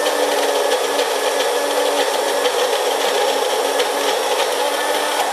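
Electric blender running steadily with an even motor hum, blending a thick date purée.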